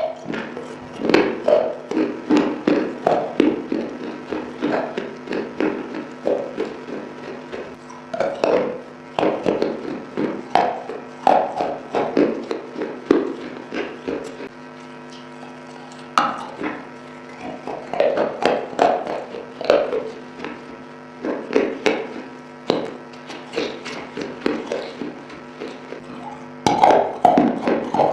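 Close-up crunching and chewing of moistened clay pot pieces: runs of quick, sharp crunches with brief pauses between bites.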